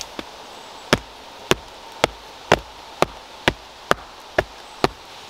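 A steady series of sharp knocks, about two a second, made by tapping on a concrete block sitting on a concrete paver to nudge it level.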